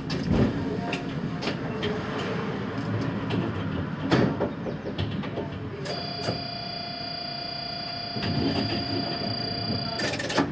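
Stationary electric tram heard from the driver's cab: a steady rumble of equipment noise with a few knocks. From about six seconds in to about ten seconds in, a steady whine of several pitches sounds, then cuts off.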